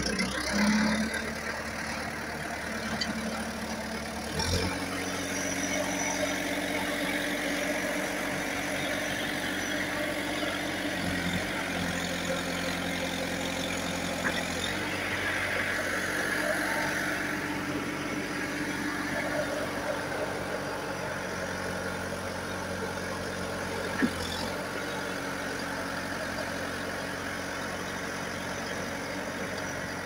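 JCB 3CX backhoe loader's diesel engine running steadily, its note stepping up and down a few times as the hydraulics work the loader arm and four-in-one bucket. A single sharp knock late on.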